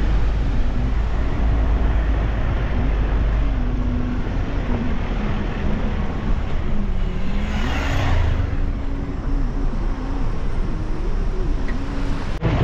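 Car driving on a rough gravel road, heard from inside: a steady engine and road rumble, with a brief rush of noise about eight seconds in.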